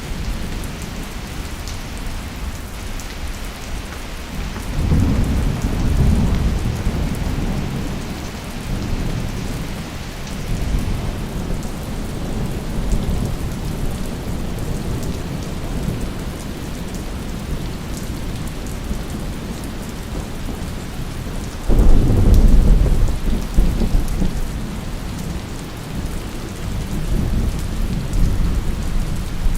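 Rainstorm: steady rain with two rolls of thunder, one building about five seconds in and a louder one breaking suddenly about three quarters of the way through, each rumbling on for several seconds.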